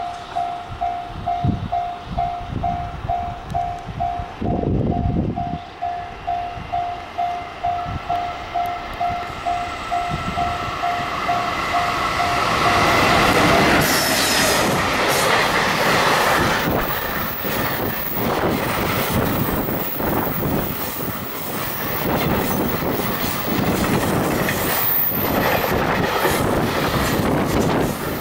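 A level-crossing bell rings steadily about twice a second, and a train rumbles past briefly about four seconds in. Some thirteen seconds in the bell stops and a JR Freight EF210 electric locomotive with a long container train passes close by, its wheels clattering over the rail joints with some squealing.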